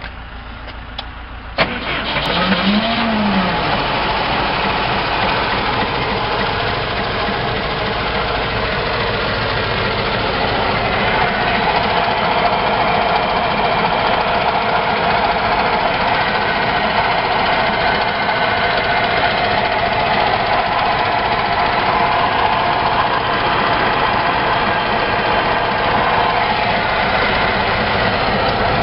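Rosco RA 200 asphalt patcher's engine starting: a click about a second and a half in, then the engine catches with a brief rise and fall in pitch and settles into a steady run.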